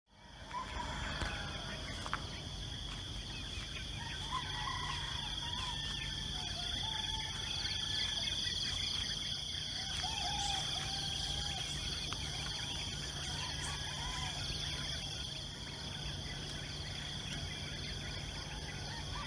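Roosters crowing several times over a steady, high-pitched drone of insects, with a low steady hum underneath.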